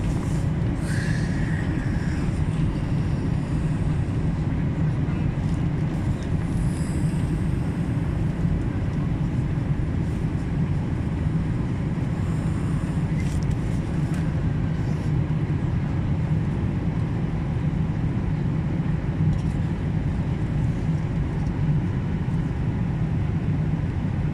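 Steady low roar of an airliner cabin in flight during descent: engine and airflow noise without letup.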